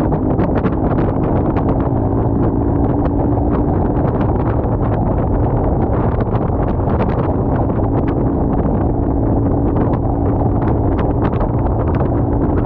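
KTM motorcycle riding steadily at highway speed: a constant engine drone under heavy wind rush on the microphone, with frequent short clicks throughout.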